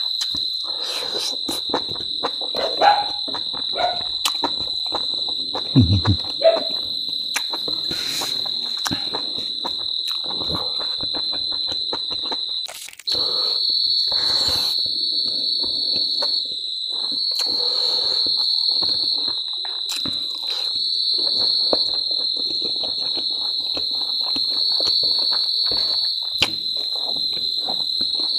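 Crickets trilling steadily on one high pitch throughout, under close-up eating sounds: chewing, smacking and crunching clicks.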